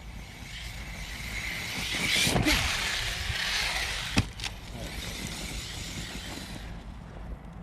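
Arrma 6S brushless RC basher driving in fast toward the microphone, its motor whine and tyre noise building to a peak about two to three seconds in and then fading. A sharp knock sounds about four seconds in.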